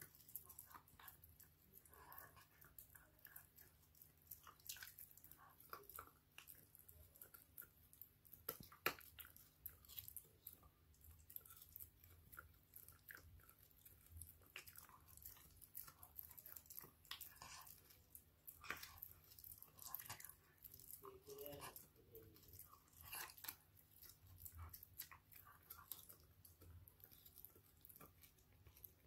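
A Shiba Inu chewing a hard white dog chew stick: faint, irregular crunching and clicking of teeth on the chew, with one sharper click about nine seconds in.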